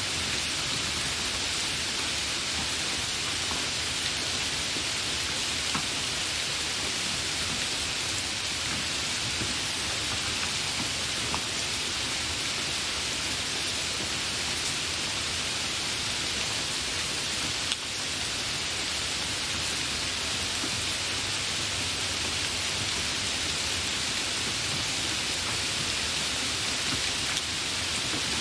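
Heavy rain falling steadily: a dense, even hiss with scattered taps of individual drops. There is a brief sharp click about eighteen seconds in.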